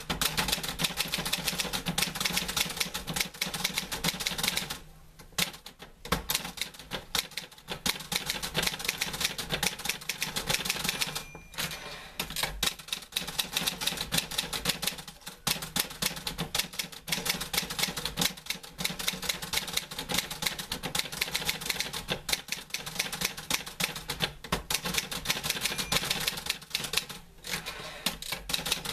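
Typewriter keys striking in fast, continuous typing, with a few short pauses and a brief ringing tone twice, near the middle and near the end.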